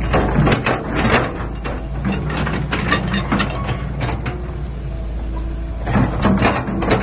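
Excavator engine running steadily under repeated metallic clanks and knocks, which come in clusters.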